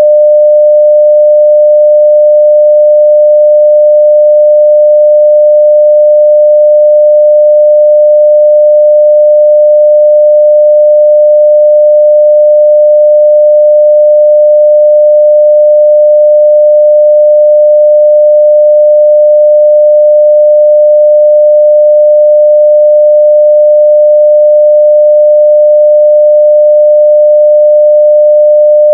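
Steady 600 Hz sine-wave test tone at full scale (0 dB), a single pure pitch held unbroken.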